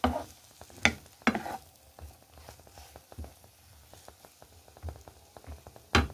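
Sliced onions sizzling and crackling in hot oil in a frying pan as they fry toward yellow, with a few sharp strokes of a spoon against the pan as they are stirred, two about a second in and one near the end.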